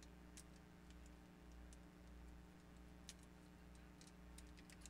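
Near silence under a low steady hum, with faint scattered clicks and light taps of small plastic test sticks and scissors being handled on a table. One click about three seconds in stands out a little.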